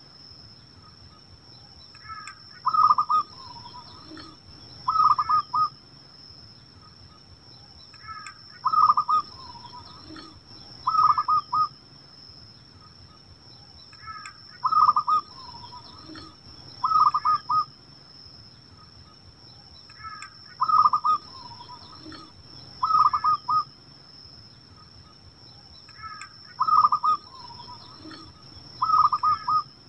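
Zebra dove (perkutut) cooing: short trilled phrases repeat in a very regular cycle, two phrases about two seconds apart every six seconds, five cycles in all. Under them runs a steady faint high whine.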